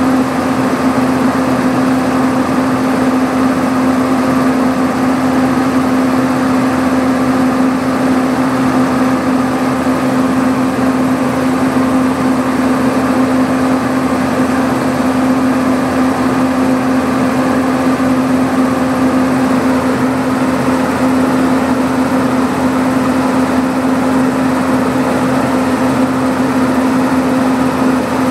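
Stationary locomotive's machinery running steadily with a constant hum, mixed with the rush of compressed air escaping from a leaking UL valve that has cut off its tractive effort.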